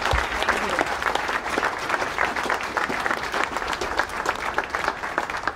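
Audience applauding: many hands clapping at once in a dense, steady patter that eases slightly near the end.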